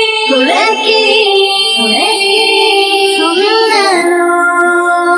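A cappella singing: several layered high voices hold chords while a melody line slides between notes above them, with no instruments.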